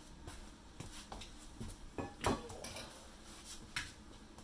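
A few light knocks and clinks of hand tools being handled and set down on a hardwood floor, the loudest about two seconds in.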